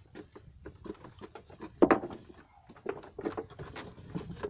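Irregular light knocks and taps, with one louder thump about two seconds in.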